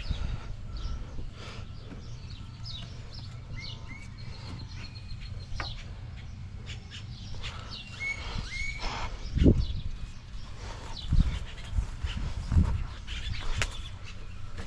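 Scattered clicks and knocks of hands working on a truck's wiring and parts, with a few heavier thumps in the second half, over a low steady rumble and short bird chirps.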